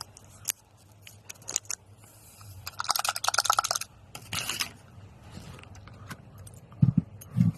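Packets of Fluimucil granules being handled and opened: scattered clicks, then a dense crinkling rattle for about a second, a shorter one after it, and two dull thumps near the end.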